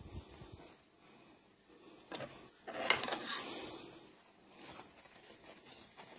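Small scissors cutting into a disposable surgical face mask: a rustling, scraping stretch about halfway through with one sharp snip near its start.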